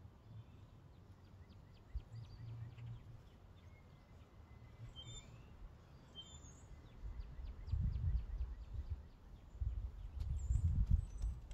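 Small birds chirping and calling, short high chirps and a few thin whistles scattered throughout. A low rumble swells over the last few seconds and is louder than the birds.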